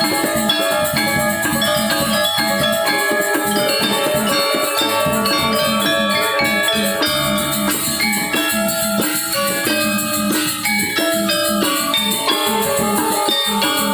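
Balinese gong gamelan ensemble playing an instrumental piece: bronze metallophones ringing in dense, fast strokes over drums.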